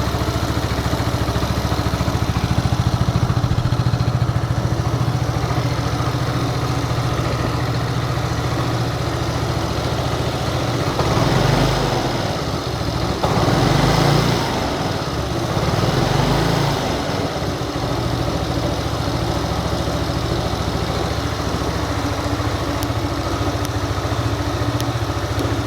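Yamaha New Cygnus X 125 cc single-cylinder four-stroke scooter engine idling steadily, with three short throttle blips in the middle. Its owner reports the running sound as an abnormal noise that appeared at about 600 km and wants it identified.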